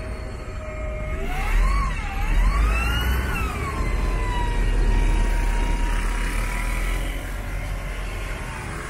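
A motor vehicle's engine accelerating over a low rumble: its pitch climbs with a wobble about a second in, peaks around three seconds, then eases down and holds steady, and a fresh climb begins near the end.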